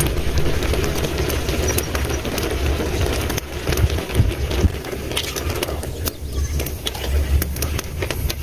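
A metal ladle stirring frogs in broth in a large aluminium wok, with sharp clinks and scrapes against the pan, more of them in the second half, over a steady low rumble.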